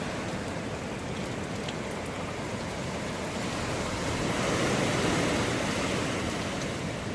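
Hurricane wind blowing with heavy rain, a steady rush that swells in a gust about four seconds in and eases back near the end.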